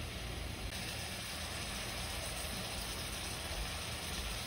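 Pot of chicken, spices and tomato cooking gently on an electric stove: a steady soft hiss over a low hum, with no stirring or crackle.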